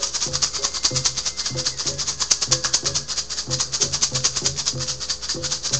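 A hand rattle shaken in a fast, steady rhythm, with a soft low beat under it.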